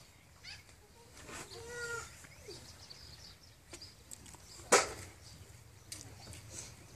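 Quiet outdoor ambience with scattered bird chirps, and one sharp, loud snap a little under five seconds in.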